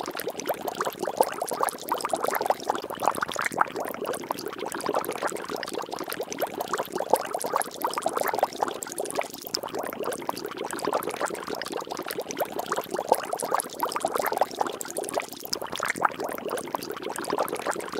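Water bubbling and splashing: a dense, steady patter of small plops and gurgles.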